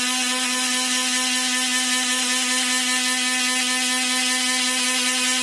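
Small handheld rotary tool (mini drill) running with a steady, even whine as its fine bit turns in a wetted stone bead held by hand, widening the bead's hole.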